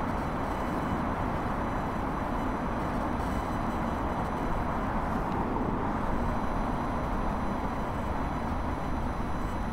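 Radio-frequency interference picked up by a Tascam DR-05X handheld recorder: a steady hiss-like noise with faint high whistling tones, relatively weak.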